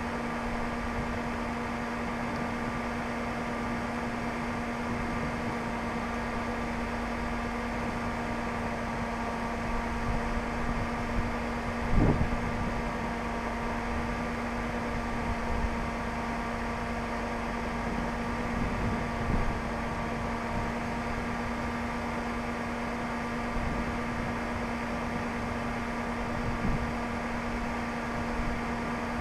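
Steady machine hum from a parked vehicle running, with one constant tone and fainter overtones above it. A few soft low thumps break in, the clearest about twelve seconds in.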